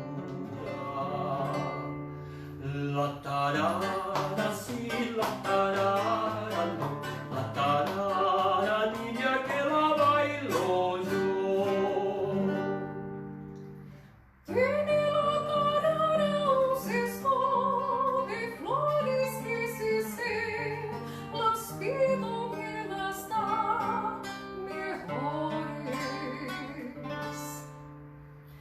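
Live music: guitar accompanying a singing voice. The music fades out to a short break about halfway through, then starts again.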